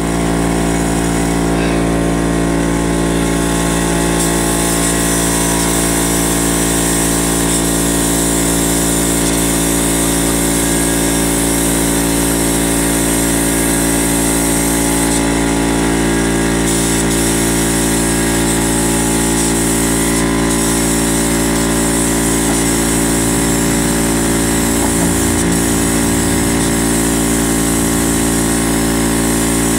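Small electric air compressor, its pump mounted on a horizontal tank, running steadily at one even pitch with a hiss over it.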